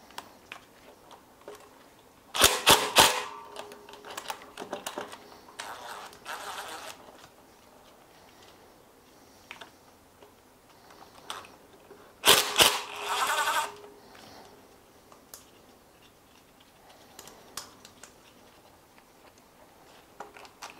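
Cordless power tool spinning nuts off the oil pan studs in two short, rapid rattling bursts, the first about two seconds in and the second about twelve seconds in. Small metallic clicks of nuts and tools come between them.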